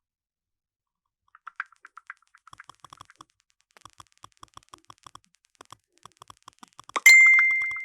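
Smartphone on-screen keyboard clicking as a message is typed, in short taps about three to four a second. Near the end a loud sharp chime rings out and fades, a phone's message alert.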